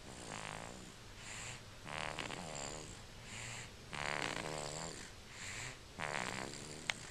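A two-month-old snoring in its sleep, a longer snore about every two seconds with a softer breath between. There is one sharp click near the end.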